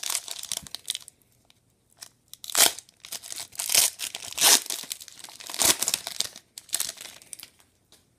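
Foil wrapper of a 2015 Panini Crown Royale football card pack being torn open and crinkled by hand as the cards are pulled out, in irregular bursts of crinkling, the loudest about halfway through.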